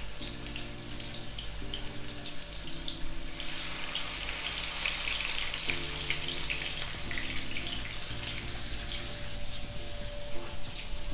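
Marinated whole fish shallow-frying in hot coconut oil, a steady crackling sizzle. About three seconds in the sizzle grows louder as a second fish is laid into the oil.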